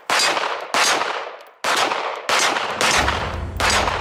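Six shots from a CZ P10 C 9mm pistol fired in fairly quick succession, about half a second to a second apart, each with a short echo. Background music comes in near the end.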